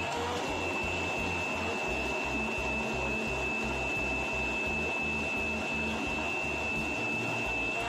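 Countertop blender running steadily at speed, blending a thick iced drink, its motor giving a constant high whine.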